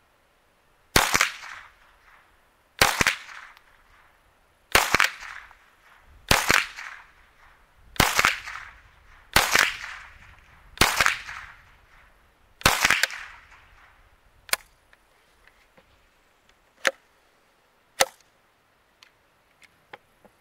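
Henry AR-7 survival rifle, a semi-automatic .22 LR, fired eight times at a steady pace of about one shot every one and a half to two seconds, each crack trailing off in an echo. Three fainter, sharper clicks follow near the end.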